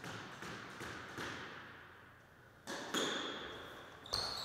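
Squash rally: a series of sharp, echoing knocks of the ball off racket, walls and floor, with a louder pair of hits about three seconds in. A short squeak of a shoe on the wooden floor comes near the end.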